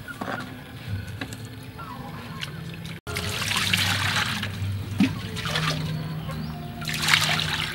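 Water poured from a jug into a stainless steel bowl of pork belly, splashing and trickling, starting about three seconds in, with a second splash near the end.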